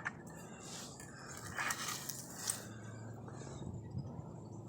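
Faint, scattered light scrapes and clicks of pliers being handled. The sounds come in a few brief touches, about one and a half and two and a half seconds in, with little else in between.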